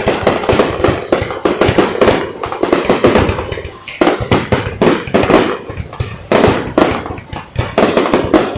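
Fireworks display: a dense, continuous barrage of bangs and crackles, many in quick succession, with no pause.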